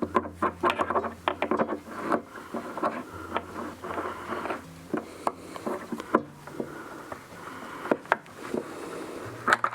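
Clicks, taps and rubbing from handling small guitar-jack hardware: needle-nose pliers, metal washers and the output jack being worked into place, busiest in the first two seconds with scattered single taps after. A faint low bass line of background music changes notes underneath.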